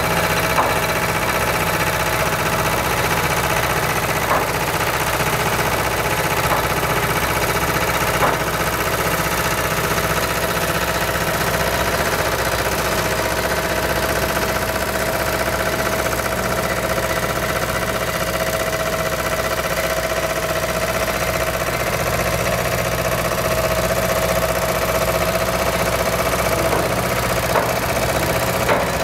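Heavy-haulage truck's diesel engine running steadily at low revs, with a few short sharp clicks in the first eight seconds and again near the end.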